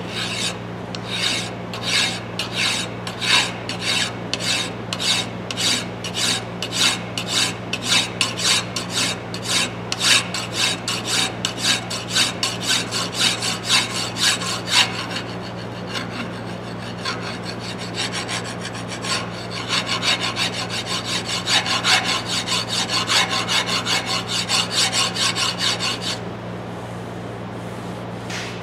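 Flat hand file rasping along a hammer's forged steel shank in repeated back-and-forth strokes, about two a second at first, then quicker and closer together. The strokes stop shortly before the end.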